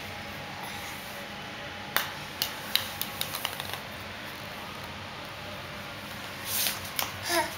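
A small ball hitting a tile floor and bouncing, the bounces coming quicker and quieter until it settles. Near the end, a brief scuffle and a short squeak.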